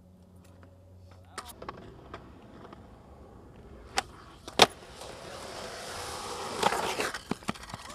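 Skateboard popping with a sharp crack about four seconds in, then slapping down on landing half a second later, the loudest sound. Its wheels then roll down a concrete bank with a rushing noise that grows louder, broken by a few clacks.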